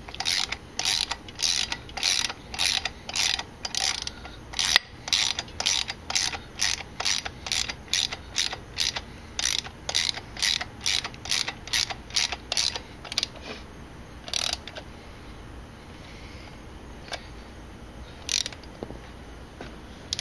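Hand socket ratchet clicking as it is swung back and forth to drive a long screw home, about two bursts of clicks a second. The strokes stop a little past halfway, with a few lone clicks after as the screw is snugged tight.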